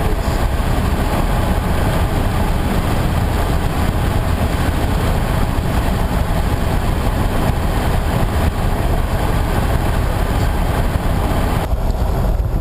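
Steady engine and road noise inside the cabin of a moving car, heavy in the low rumble. The higher hiss thins out about a second before the end.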